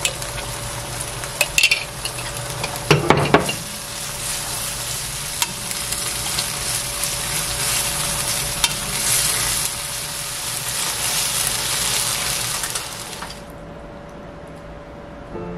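Spaghetti in tomato sauce sizzling in a hot nonstick wok as it is stir-fried with wooden chopsticks, with scattered clicks and a knock of the chopsticks and pan. The sizzle stops about thirteen seconds in, as the wok comes off the burner.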